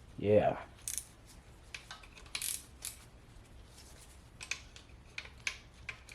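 Steel sockets and hand tools clinking against each other in a string of irregular light metallic clicks, as sockets are picked out and tried on the engine's bolts.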